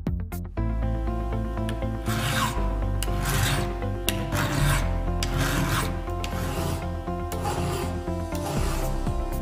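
Hand file rasping in repeated strokes across the steel cutters and depth gauges of a chainsaw chain, about one stroke a second, over background music.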